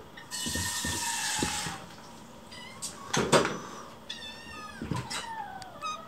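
Hungry kittens mewing several times in high cries that waver and fall in pitch, pestering to be fed. A hissing noise runs through the first second and a half, and there is a sharp knock about three seconds in.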